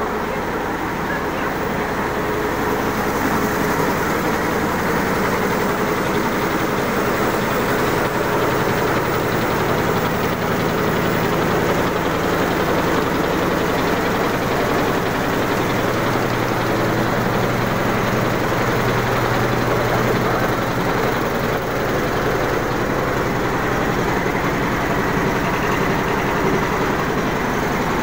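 Raschel warp-knitting machine making anti-hail netting, running steadily with a loud, fast, even mechanical clatter.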